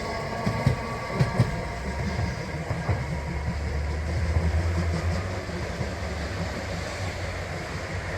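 A rail vehicle running on the tracks: a few sharp clacks of wheels over the rails in the first second and a half, then a steady low rumble.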